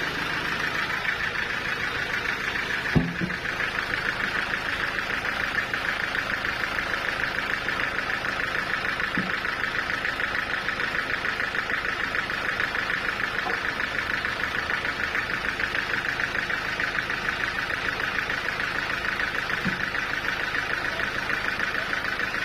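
Sawmill machinery running steadily with a fast, even pulsing hum, and a single sharp thump about three seconds in.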